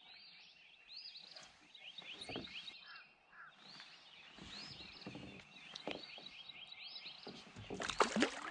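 Songbirds singing, repeating quick series of chirping notes over and over. A few knocks and rustles of gear being handled come near the end, the loudest at about eight seconds.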